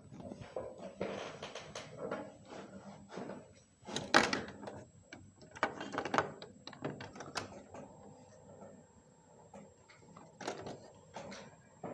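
A series of irregular plastic-sounding clicks and knocks of something being handled, the sharpest knock about four seconds in.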